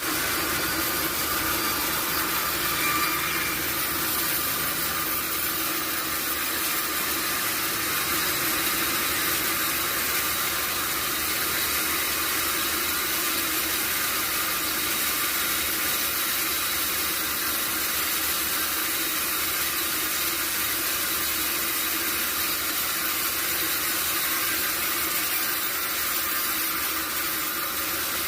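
Sawmill machinery running steadily, a continuous high hiss with a faint low hum beneath it.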